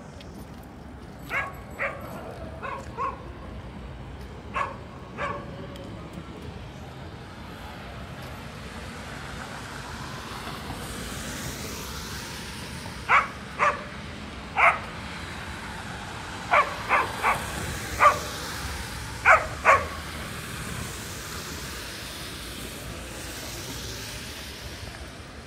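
A dog barking in short, sharp barks: a few in the first five seconds, then, after a pause, a run of about ten over the next several seconds. Underneath is a steady hiss of rain and traffic on wet streets, with vehicles swishing past.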